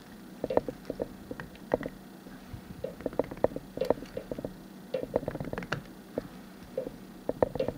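Plastic cable tie being pulled tight, its ratchet clicking in short irregular runs of sharp ticks.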